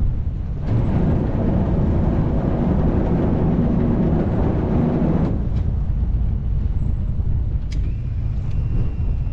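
Boat engine running with wind buffeting the microphone, growing louder and rougher for about four seconds, starting about a second in.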